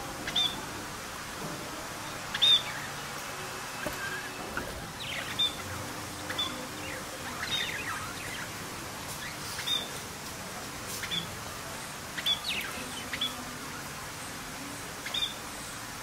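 Budgerigars chirping: short high chirps and twittering calls come every second or two over a steady background hiss.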